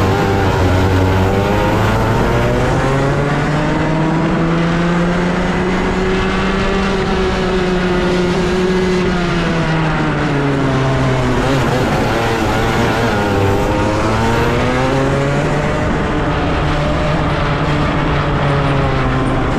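A 125cc racing kart engine heard from on board, under full throttle. The revs climb for several seconds, drop away about two-thirds of the way through as the throttle comes off for a corner, then pick up again and hold high.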